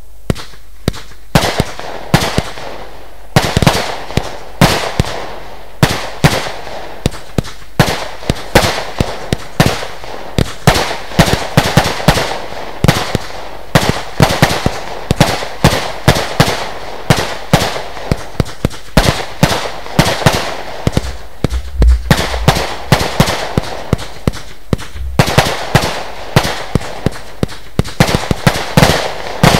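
A 512-shot, 20 mm Lesli 'Dezemberfest' compound firework cake firing. It gives a quick, steady run of launch shots and small bursts, about two to three a second, with hissing and crackling noise between them.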